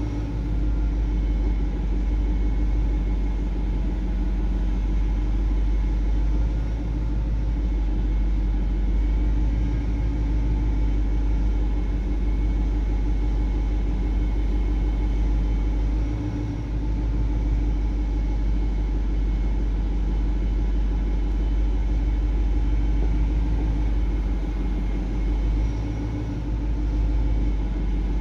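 BMW car running, a steady low rumble with a steady hum over it; no distinct clicks stand out.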